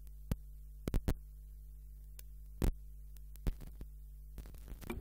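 Steady low electrical hum from the meeting room's microphone and sound system, broken by several sharp clicks and knocks at irregular intervals, the kind made by handling desk microphones and papers on the table.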